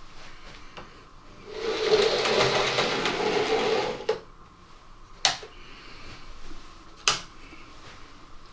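Hornby Schools class model locomotive's motor and gears whirring loudly for about two and a half seconds as it runs past, then fading, followed by two sharp clicks a couple of seconds apart.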